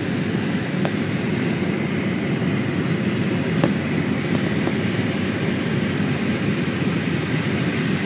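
Steady engine and airflow noise inside a passenger plane's cabin in flight, a low, even rush.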